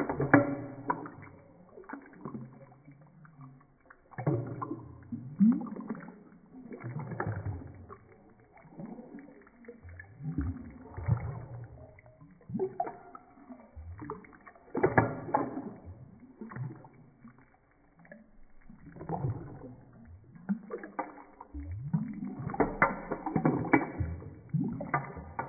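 Water sloshing and splashing in a sink basin around the drain, in irregular surges a second or two apart that become busier near the end.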